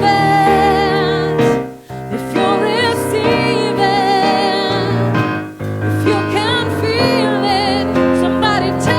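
Gospel worship music: a singer holding long notes with vibrato over piano or electric keyboard chords, breaking briefly between phrases twice.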